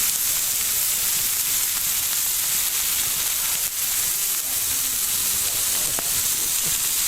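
Beef steak sizzling on a hot iron griddle plate over a campfire, a steady frying hiss.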